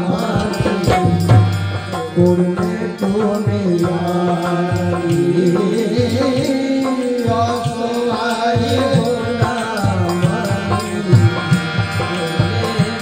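Live devotional song in qawwali style: male voices singing to a dholak drum beat, over sustained instrument tones.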